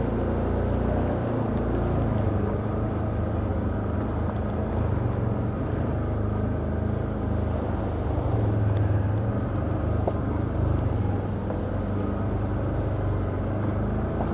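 Can-Am Outlander ATV engine running steadily at low speed.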